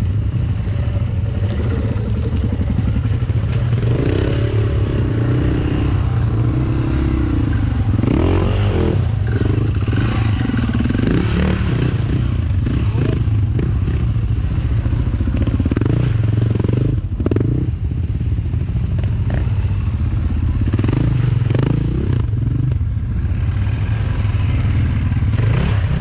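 Dirt-bike engines running and revving hard as the bikes climb a muddy track, their pitch rising and falling again and again over a steady low drone, with clatter and knocks mixed in.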